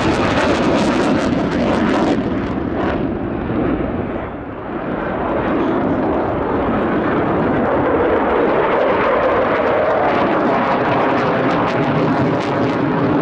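Fighter jet engine noise for about the first two seconds, then the steady drone of a C-130 Hercules's four turboprop engines as the transport flies low past.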